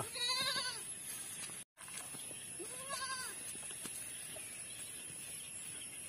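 Goats bleating twice: a quavering call just under a second long at the start, and a shorter one about three seconds in.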